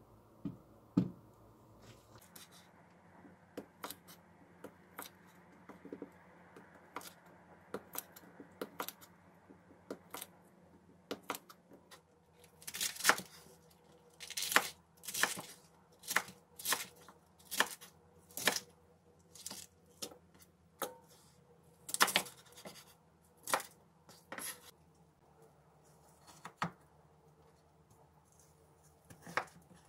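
Kitchen knife slicing and chopping on a wooden cutting board in separate, uneven strokes: light scattered cuts at first, then a run of louder chops through cabbage in the middle, then lighter cuts again.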